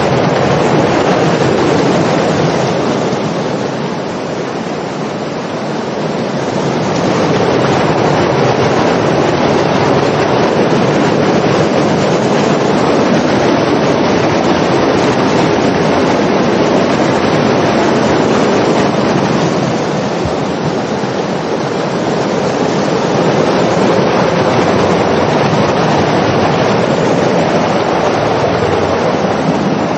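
Muddy floodwater rushing down a wadi channel and through its concrete culvert pipes, a loud steady rush that softens slightly twice.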